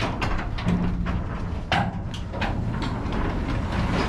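Sectional garage door being lowered by hand, its rollers rumbling along the tracks with frequent irregular clicks and knocks from the rollers and hinges.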